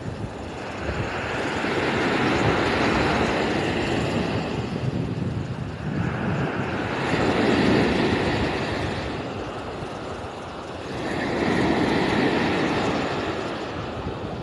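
Sea waves washing ashore, a steady rushing surf that swells and falls back in slow surges about every four to five seconds.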